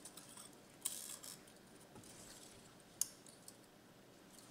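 Faint clicking and rustling of small beads and beading wire being handled, with a short patch of clicks about a second in and one sharp click about three seconds in.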